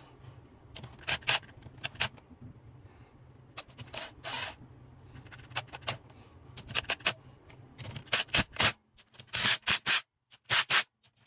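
Short, irregular scraping and rubbing strokes, sparse at first with one longer stroke about four seconds in, then coming about two a second over the last few seconds, over a low steady hum that stops about three-quarters of the way through.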